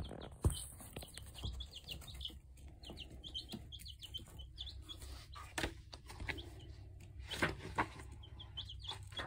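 Young chicks peeping: many short, high, downward-sliding chirps coming in clusters, with a few soft clicks or knocks among them.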